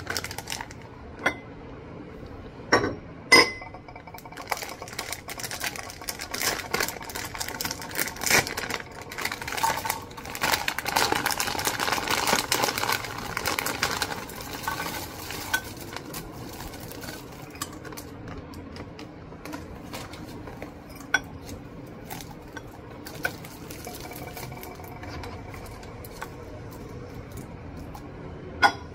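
Glass lid of a cut-glass candy dish clinking as it is lifted off, then foil-wrapped sweets poured from a plastic bag rattling into the glass bowl with crinkling wrappers, loudest midway. Lighter clicks follow as the sweets are settled by hand, and a sharp glass clink comes near the end as the lid goes back on.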